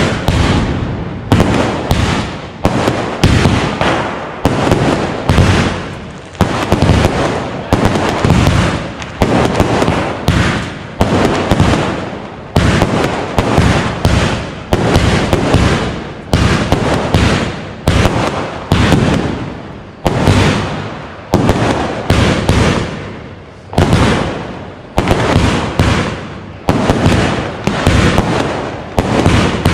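Aerial firework shells bursting overhead in a rapid, continuous volley of sharp bangs, about one to two a second, each dying away in a short ringing tail.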